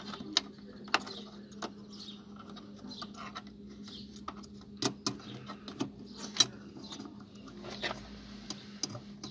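Irregular plastic clicks and scrapes as fingers work an H7 halogen bulb and its wiring connector into the back of a BMW E60 headlight housing, the sharpest knocks about five and six and a half seconds in. A faint steady hum runs underneath.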